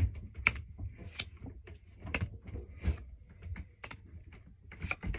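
Pokémon trading cards being handled and flipped through: a run of irregular light clicks and flicks as the cards are snapped and set down.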